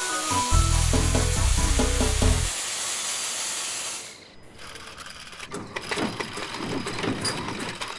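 Cartoon sound effects of a machine being built: a loud hiss and a low buzzing motor under a quick run of musical notes, then, about halfway through, quieter ratcheting clicks and clanks of tools.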